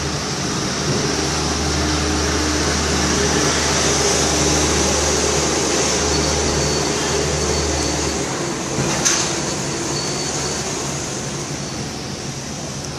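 A vehicle engine running steadily under a constant hiss; its low hum drops out about eight seconds in, and a single sharp click follows about a second later.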